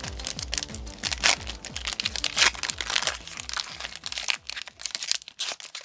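Foil wrapper of a Pokémon trading-card booster pack being torn and crinkled open in the hands: a rapid run of sharp plastic crackles.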